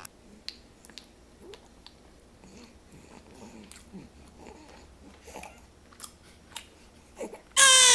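A baby sucking and gumming his own hand: soft wet mouth clicks and smacks with little vocal sounds. Near the end he suddenly starts crying loudly.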